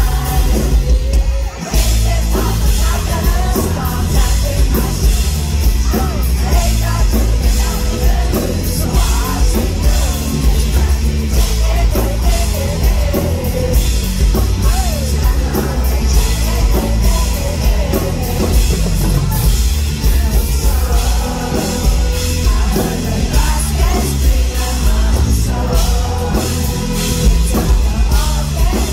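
Pop-rock band playing live: a lead vocal over electric guitars, bass and a drum kit, heard from within the crowd with a heavy, boomy low end.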